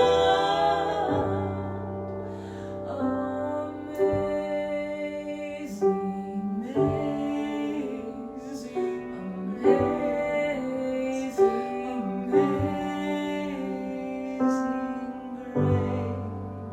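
Slow, gentle song with women's voices singing over piano accompaniment.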